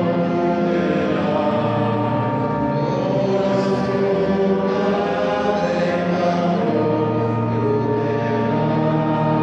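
A choir singing slow sacred music in long, held chords that change every couple of seconds.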